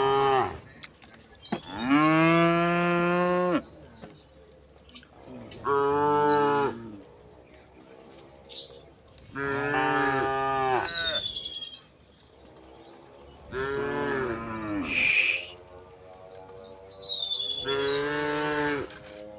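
Cattle mooing again and again: about five long, drawn-out moos, one every four seconds or so. Small birds chirp between the calls.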